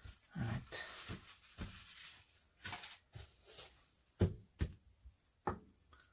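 A paper napkin rustles as hands are wiped on it, followed by several short knocks and taps of objects being handled and set down on a stone countertop.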